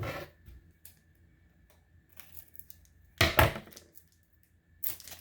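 A trading-card booster pack's foil wrapper being handled and torn open: a few short crinkly rips, the loudest about three seconds in.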